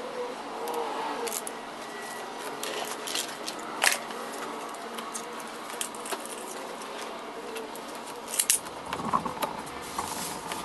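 Scattered small clicks, scratches and rustles of hand work on a golf cart's plastic front cowl: marking lines through a paper template and handling the tape and template. A sharper click comes about four seconds in, and a few more near the end.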